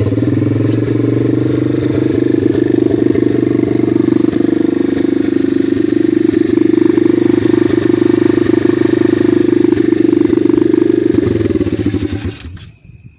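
125cc pit bike's single-cylinder four-stroke engine running loud and steady just after a first-kick start, on a fresh carburettor and air filter; it dies down near the end.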